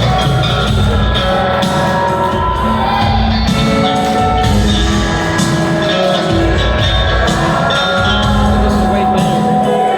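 Live band music with sustained instrument notes, bass and drums; a faint voice may be singing.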